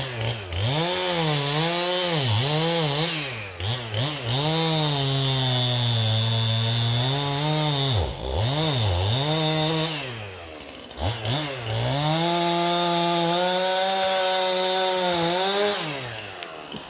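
Chainsaw engine at high revs cutting wood, its pitch sagging and recovering under load, dropping back to idle between cuts several times and again near the end.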